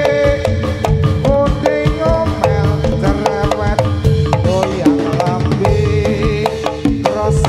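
Javanese jathilan accompaniment music: drums beating a brisk, even rhythm several strikes a second under sustained and sliding pitched melody lines.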